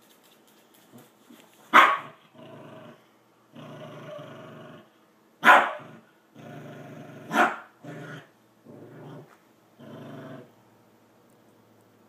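Dog growling in rough runs of about a second at a time, broken by three sharp barks; the growling stops near the end.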